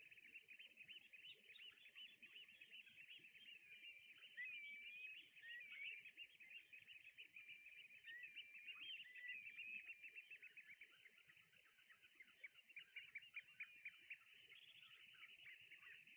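Faint, dense chatter of many short bird calls with a few whistled, sliding notes, from a mixed flock of brent geese and small shorebirds on the water.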